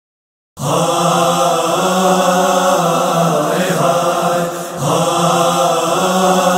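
A chorus of voices chanting a sustained, humming drone as the backing of a noha. It starts after a brief silence and swells and restarts about every four seconds.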